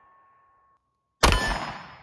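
A single 9mm pistol shot from a Glock G43x MOS about a second in: a sharp crack that dies away over about a second. At the start the tail of the previous shot is still fading, with a thin metallic ring from the steel target that dies out before the next shot.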